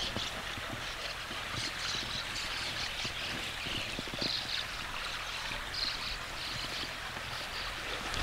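Water trickling steadily in a small concrete irrigation canal, with short high chirps now and then.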